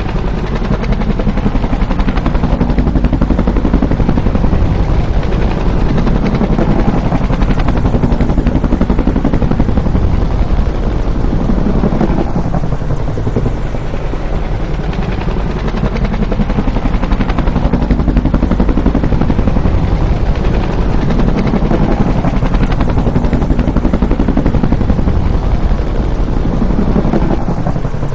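Bell UH-1 "Huey" helicopter flying by, its two-bladed main rotor beating out a loud, rapid, steady chop. The pitch sweeps down and back up several times as the sound swells and eases.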